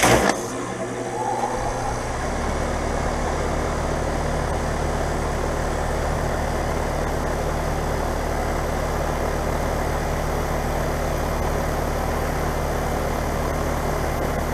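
2020 Carrier Comfort 25HCE 5-ton heat pump outdoor unit starting up in heat mode. It comes on suddenly, with a brief rising tone in the first second or so. From about two seconds in it settles into a steady low hum and fan noise.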